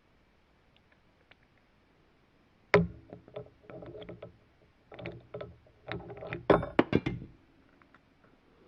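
Knocking and rattling clatter of hard angle-grinder parts being handled: a sharp knock about three seconds in, then irregular knocks and rattles, with a cluster of the loudest knocks near the end.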